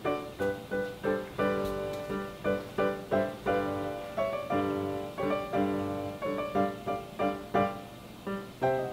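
Light, cheerful background music played on piano, a steady run of notes at about two to three a second.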